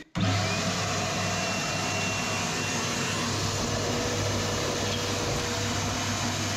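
Wet vac running steadily with a low hum, its hose held to the bath mixer tap's spout to suck a suspected airlock out of the cold supply.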